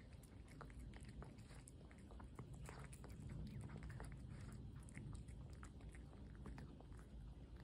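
A cat eating wet cat food from a plate: faint, quick, irregular chewing and smacking clicks as it gulps the meaty chunks.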